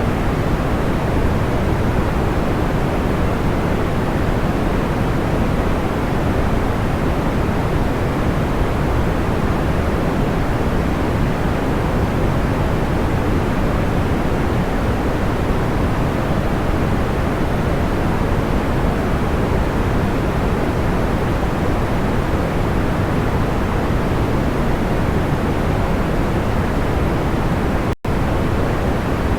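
Steady, soft pink-style noise, deep and even like a low hiss, with no crackles standing out. It cuts out for an instant near the end.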